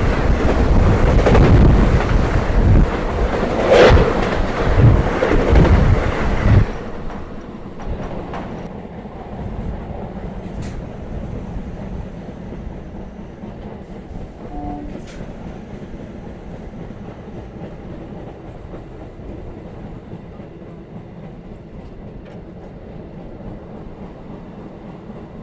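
The Alipurduar–Sealdah Kanchankanya Express rushing past on the adjacent track, a loud rush of wind and wheel noise that cuts off suddenly about seven seconds in as its last coach clears. After that the electric local train's own wheels clatter steadily over the rails, much quieter.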